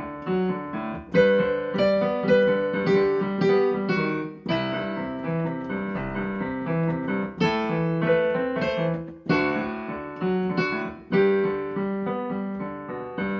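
Piano playing a melody over chords, each note struck sharply and dying away.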